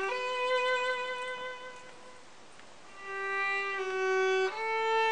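Solo violin playing a slow melody of long held, bowed notes. The first long note fades out about two seconds in, and after a short pause the phrase resumes with more sustained notes.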